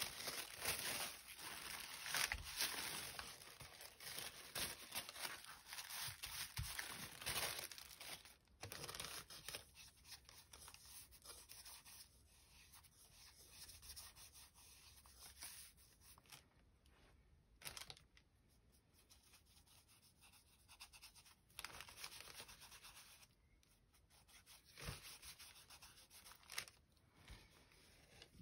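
Soft rustling and rubbing of collage paper handled and smoothed by hand on a tabletop, with scattered light clicks and taps. Busiest in the first several seconds, then quieter.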